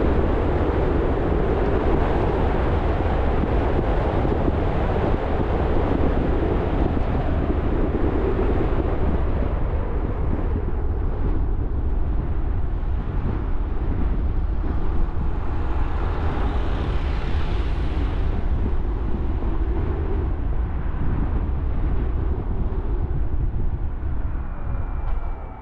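Steady road noise of a car driving: a low rumble of tyres on the road with wind on the microphone. A brighter hiss swells and fades about two-thirds of the way through, and the noise drops off sharply at the very end.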